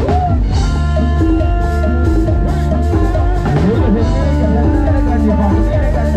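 Live band music played through a parade-truck sound system: an electric guitar carries a melody over keyboards and drums. The bass is heavy, from Thai Audio SR18 bass cabinets, with TD-112 mid cabinets.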